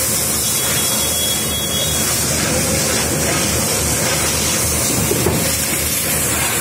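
Steady loud hissing of spray and steam from the burning motorcycle as it is doused.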